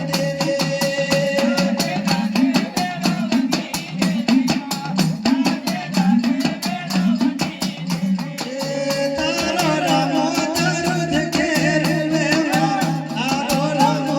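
Live Gujarati dakla devotional folk music: a fast, steady beat of drum and rattling percussion over a sustained low drone, with a wavering melody line that comes in more strongly about nine seconds in.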